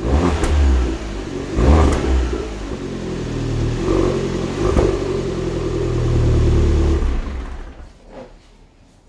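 Alfa Romeo MiTo Quadrifoglio Verde's 1.4-litre turbocharged four-cylinder engine, on its stock exhaust, being revved: two short blips, then a longer held rev that drops away about seven seconds in.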